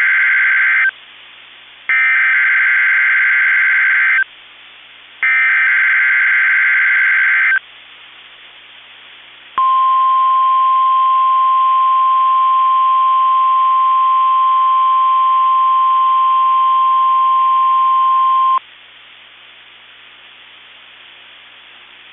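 NOAA Weather Radio Emergency Alert System signal: the tail of one screechy SAME header data burst and two more, each about two and a half seconds with a second's pause between, coding a Required Weekly Test. About two seconds later the steady single-pitch 1050 Hz Weather Radio warning alarm tone sounds for about nine seconds, then cuts off to faint radio hiss.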